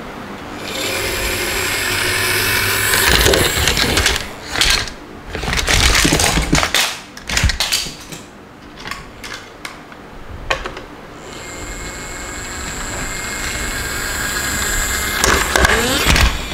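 Plastic toy vehicles rattling as they roll along a wooden board, with a run of clattering knocks in the middle as toys tumble over the edge. Near the end a steady rattle grows louder before another loud clatter.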